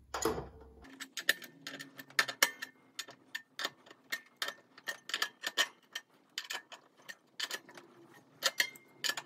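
Adjustable wrench working a nut and washer on a ceiling fan's metal pan as the bolt is tightened: a run of short metallic clicks, about two to three a second, as the wrench is turned and reset on the nut.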